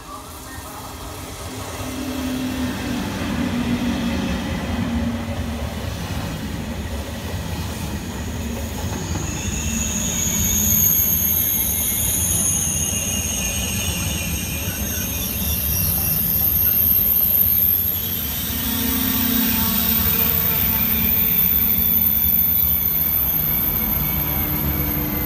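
TGV high-speed trainset passing through the station at moderate speed. Its wheels rumble steadily on the rails, growing louder as it approaches, and a steady high-pitched whine joins in as the cars go by.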